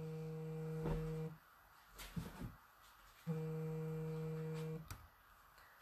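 Two steady humming tones at the same low pitch, each about a second and a half long, the second starting about three seconds in, with a brief soft rustle between them.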